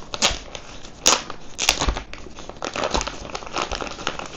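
Plastic packaging bag crinkling and rustling as hands handle it and work it off the camera's carrying case. A few sharper crackles stand out in the first two seconds.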